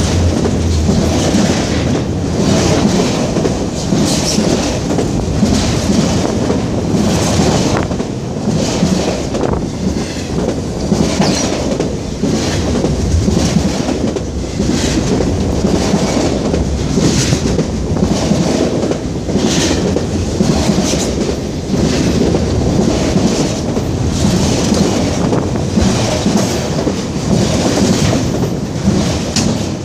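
Autorack freight cars rolling past close by: a steady, loud rumble of steel wheels on rail with a regular clickety-clack as the wheel sets pass.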